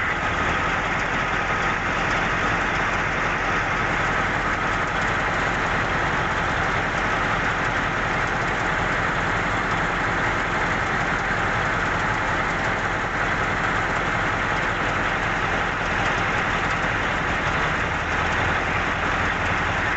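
Heavy mining-equipment diesel engine running steadily, a constant dense noise with no breaks or impacts.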